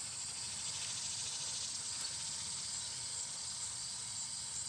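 Steady, high-pitched chorus of insects trilling.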